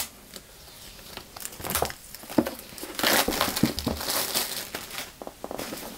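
Clear plastic wrap on a new iPad Pro box crinkling as it is torn open by its tab and pulled off by hand, in scattered rustles and small crackles that are loudest about three to four and a half seconds in.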